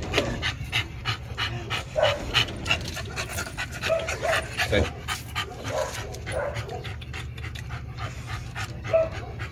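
American bully dog panting quickly and steadily, breath after breath.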